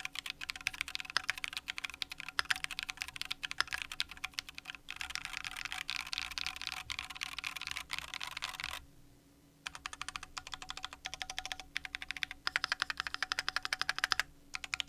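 Fast typing on a Keychron Q2 mechanical keyboard with Alexandrite linear switches and PBT keycaps: a dense run of keystrokes that stops for about a second partway through, then resumes.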